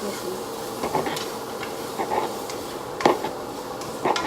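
Knife cutting on a cutting board: a handful of short, irregular knocks over a steady background hiss.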